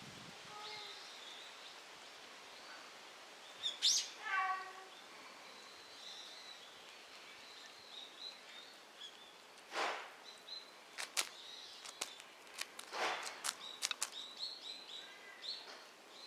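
Outdoor woodland ambience with faint bird chirps. About four seconds in there is a loud, short call that falls in pitch. From about ten seconds on come rustling and a run of sharp snapping clicks, like dry leaves and twigs being disturbed.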